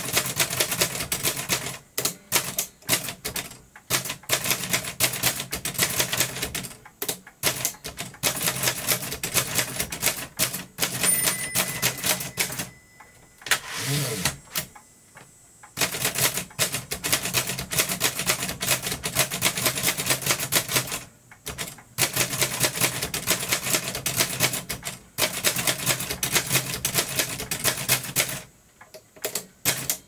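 1892 Chicago No. 1 (Munson) typewriter being typed on: rapid runs of mechanical keystroke clacks in bursts, broken by brief pauses and one longer pause about halfway through.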